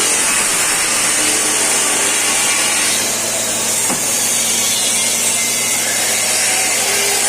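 Window air conditioner running with its newly replaced compressor just started after a gas recharge: a steady low hum under a loud, even hiss.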